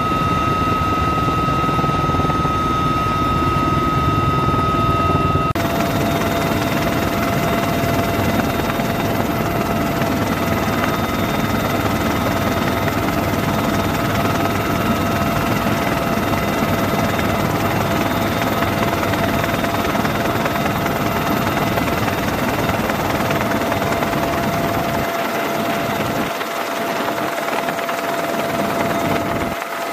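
Helicopter running steadily in flight, a dense drone of engine and rotor noise with a steady turbine whine. The whine jumps to a lower pitch about five seconds in.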